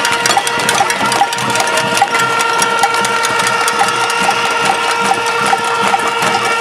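A large crowd banging pots, pans and lids with spoons in a cacerolazo protest: a dense, continuous metallic clatter of many overlapping strikes.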